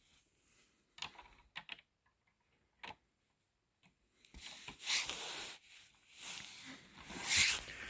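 Small plastic clicks of LEGO pieces being handled, a few single clicks in the first three seconds, then several seconds of rubbing and shuffling as the model is moved.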